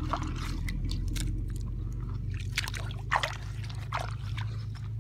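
A hand sloshing and churning through a shallow muddy puddle: irregular wet splashes and squelches, the loudest just after three seconds in, over a steady low hum.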